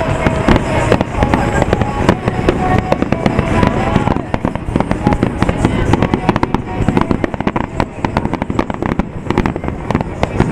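A dense barrage of aerial firework shells bursting, with many bangs and crackles in quick succession and no break.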